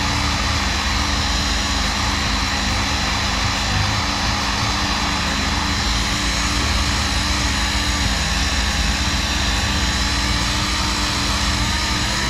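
Pneumatic orbital sander with dust extraction running steadily against body filler on a bus's corner panel, with a constant high whine over a dense, even hiss.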